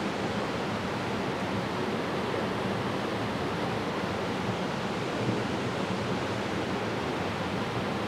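Waterfall cascading over rocks into a pool: a steady rush of falling water.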